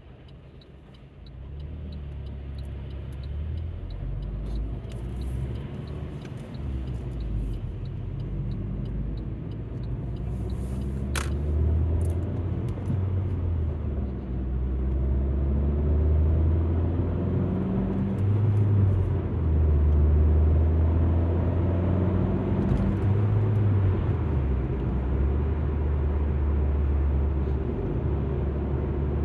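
Alfa Romeo MiTo pulling away and driving on, its engine and road rumble coming up about a second and a half in and growing louder. The low engine note shifts pitch several times as it changes speed and gear. A single sharp click about eleven seconds in.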